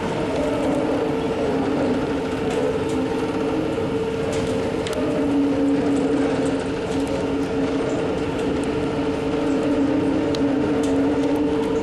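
Heavy open-pit mining machinery running steadily: a continuous mechanical din carrying two held humming tones, with faint scattered clicks.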